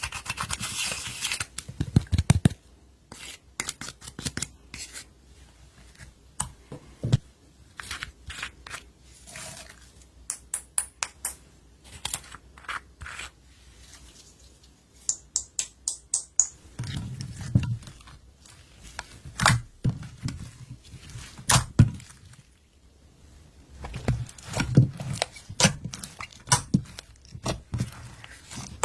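Hands kneading and stretching slime: a stream of sticky clicks and small pops, with soft low squishes coming in clusters in the second half.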